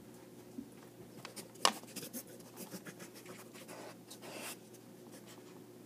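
Light taps, clicks and scratching as a kitten paws and noses at an iPad, right against its microphone. There is one sharper click about a second and a half in and a short scratchy rub at about four seconds.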